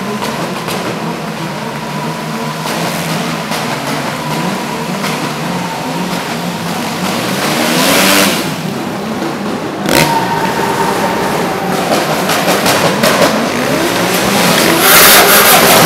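Drift-car and motorcycle engines revving up and down again and again, with a burst of hiss near the middle and a sharp bang about ten seconds in. Near the end loud tyre squeal and skidding take over.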